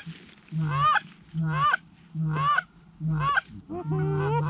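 Goose honks, about one a second, each a low note breaking into a higher arched honk; near the end several honks overlap into a longer run.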